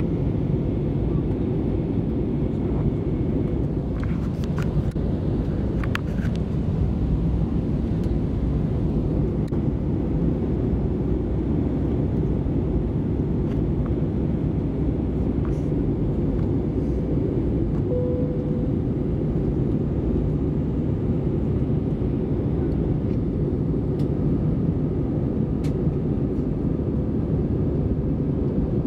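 Steady drone of a jet airliner's cabin in flight: engine and airflow noise, low and even, heard from a window seat. A few faint clicks sound about four to six seconds in.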